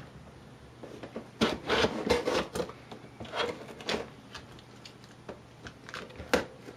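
A knife slitting the packing tape along the seams of a cardboard box: irregular scraping strokes, busiest from about one and a half to four seconds in, with a sharp scrape near the end.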